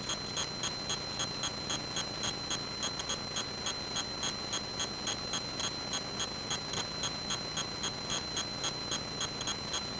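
Electrical noise in a light aircraft's cockpit audio: a steady high whine with a regular tick, about three or four a second.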